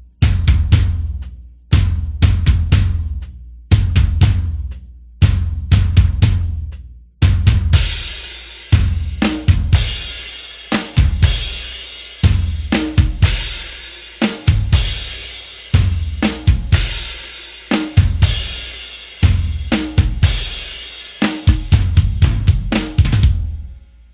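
Sampled metal drum kit from Toontrack's EZdrummer 3 MetalHeads EZX library playing a groove: rapid kick-drum runs with snare hits, then from about seven seconds in, a heavier section with cymbals ringing over kick and snare.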